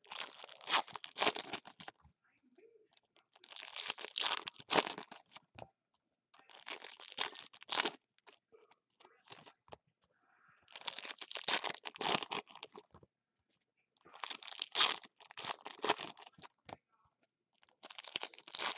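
2016 Bowman's Best foil trading-card pack wrappers being torn open and crinkled by hand, in bursts every three or four seconds with quiet between.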